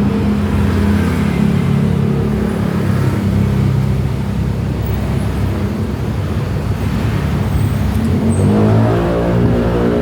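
An engine or motor running steadily, its pitch wavering slightly, shifting up near the end.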